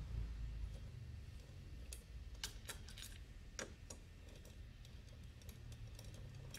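Faint, scattered metallic clicks and taps from a socket wrench loosening the 8 mm bolts of a scooter's engine side cover, over a steady low hum.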